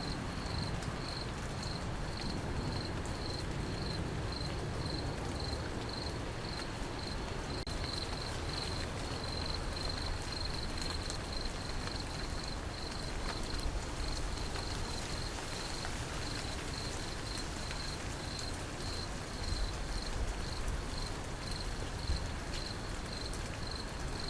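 Steady rain falling, with an insect chirping in a regular high-pitched pulse, about two chirps a second, over it.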